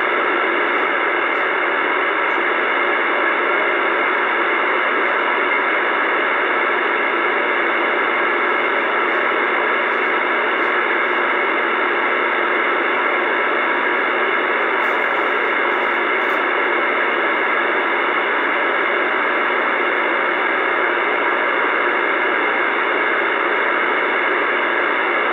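Uniden Bearcat CB radio's speaker on AM channel 28 putting out a steady, loud hiss of static, with no voice, while its signal meter shows a weak station held at about 3.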